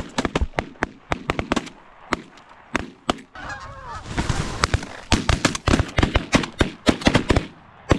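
A volley of shotgun fire from several hunters shooting together, dozens of shots in quick succession with a short lull about three seconds in, over Canada geese honking.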